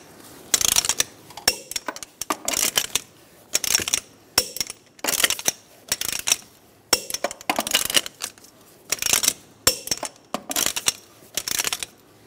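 Torque wrench ratcheting and clicking as the wheel's lug nuts are tightened to 100 foot-pounds: short runs of sharp metallic clicks, repeating every half second or so.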